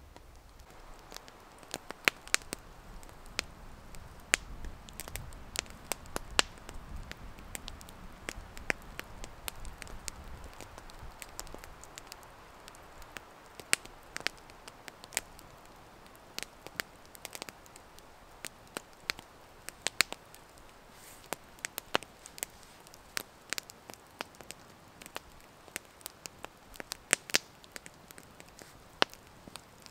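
Wood campfire crackling, with sharp pops and snaps at irregular intervals throughout.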